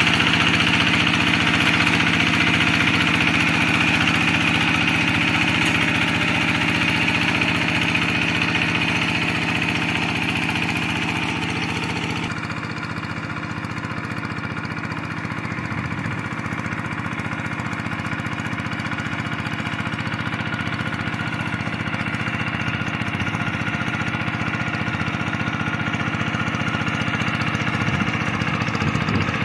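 Kubota RD85 single-cylinder diesel engine on a Quick G1000 hand tractor running steadily under load while the tractor harrows paddy mud. About twelve seconds in the sound cuts to a more distant, duller engine note, which grows slightly louder near the end.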